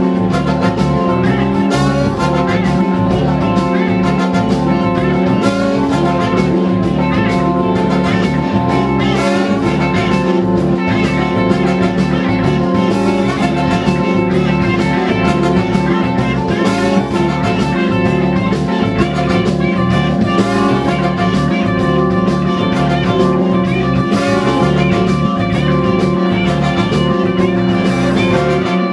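Live band playing an instrumental groove, with electric bass, congas and horns over a steady beat.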